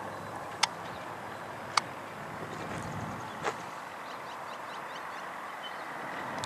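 Hot air balloon's propane burner firing overhead, a steady rushing noise. Two sharp clicks come in the first two seconds and faint bird chirps midway.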